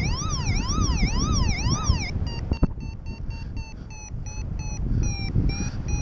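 Paraglider variometer. For about two seconds it gives a warbling tone that sweeps up and down about twice a second. It then switches to short beeps, about three a second, slowly dropping in pitch: the audio climb signal while circling in a thermal. Wind rumbles on the microphone underneath.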